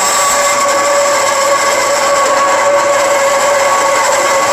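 Wood-cutting bandsaw slowed to about 244 feet per minute, its 14 TPI carbon steel blade cutting through mild steel bar stock: a steady, loud, harsh cutting noise with a ringing whine running through it.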